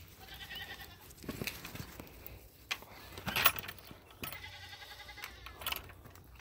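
Nigerian Dwarf goats bleating: a short wavering bleat near the start and a longer one about four seconds in. Between them come scuffling noises and a sharp knock, the loudest sound.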